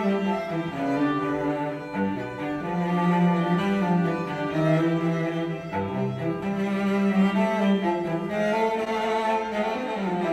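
Classical string music with a prominent cello, played through a pair of PreSonus E5 XT studio monitors and then a pair of KRK Rokit 5 G4 monitors, recorded by a microphone in the room.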